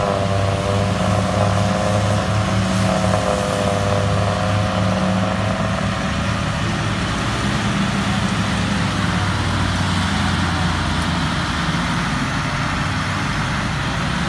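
Several Massey Ferguson diesel tractors running hard under load, chained together to drag a heavily loaded trolley through a soft field. A steady heavy engine drone, with a higher engine note that wavers over the first half and then fades.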